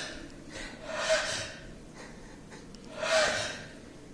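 Two short, breathy snorts from a person, about two seconds apart.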